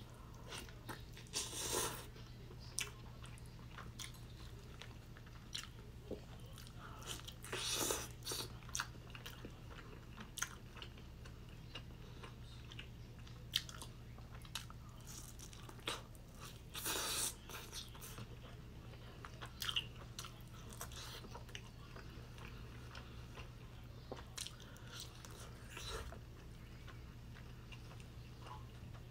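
Close-miked biting and chewing of KFC fried chicken: crunches of the breaded coating and wet mouth sounds, with louder crunchy bites near the start, about eight seconds in and about seventeen seconds in. A low steady hum underneath.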